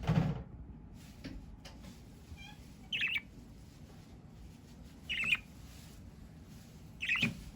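Pet budgerigar giving short, high chirps, three clear ones about two seconds apart with a few fainter tweets between, after a soft thump at the start.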